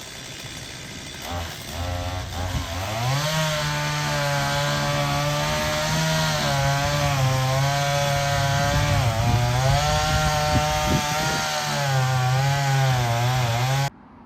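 Stihl MS250 two-stroke chainsaw revving up about two seconds in and held at high revs while cutting through a Japanese cedar trunk, its pitch dipping briefly a few times under load. The sound cuts off abruptly near the end.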